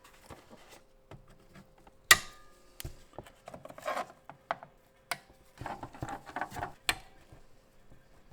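Handling noises: a sharp knock with a short ring about two seconds in, then a run of clicks, taps and rubbing, over a faint steady hum.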